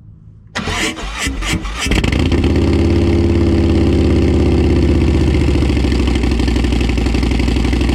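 A 2017 Harley-Davidson Road Glide's Milwaukee-Eight V-twin being started: the starter cranks for about a second, the engine catches about two seconds in, then it runs loud and steady at idle.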